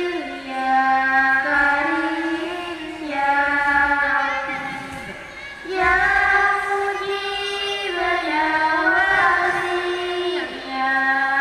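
A girl's voice chanting a slow, melodic religious recitation into a microphone: long held notes joined by ornamented turns, with short breaks between phrases.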